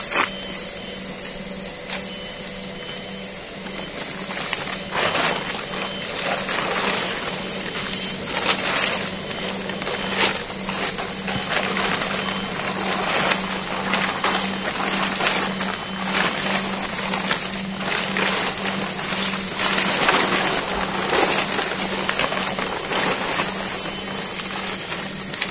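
Steady heavy rain on a tent or tarp, with a constant high-pitched whine throughout.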